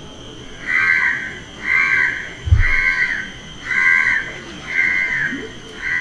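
An animal call repeated six times, about once a second, each call short and harsh. A single low thump sounds about halfway through.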